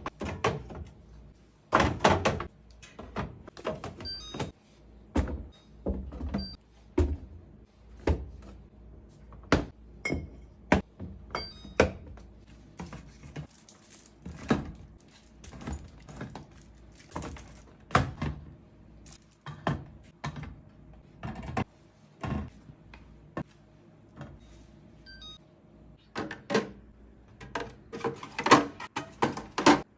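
Containers and groceries being set down and arranged in a refrigerator: a run of irregular thuds, knocks and clicks, some louder than others.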